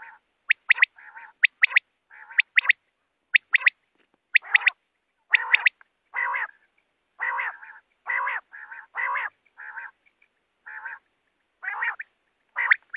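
Quail calling over and over. Sharp, high two- and three-note calls come in quick succession. For about six seconds from the middle the calls are mostly longer, lower and harsher, about a third of a second each, and the sharp calls return near the end.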